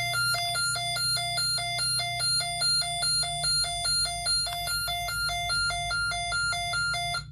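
Snap Circuits fire alarm panel sounding a supervisory signal: an electronic tone pulsing about three times a second. It cuts off suddenly near the end as the alarm is silenced.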